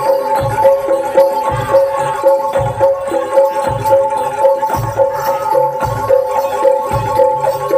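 Javanese jaranan ensemble music: drums strike a deep stroke about once a second over a quick repeating pattern of pitched notes, with two high tones held steadily over it.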